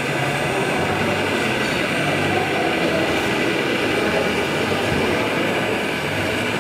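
Steady mechanical rumble from radio-controlled model construction machines at work, under a continuous background din, with no distinct knocks or changes.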